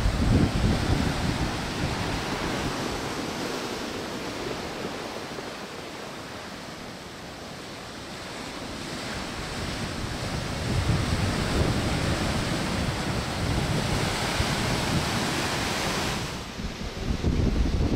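Ocean surf breaking and rushing up the beach, a storm swell from a distant hurricane, the wash swelling and fading with each wave, with wind buffeting the microphone. Near the end the surf sound drops away, leaving gusts of wind on the microphone.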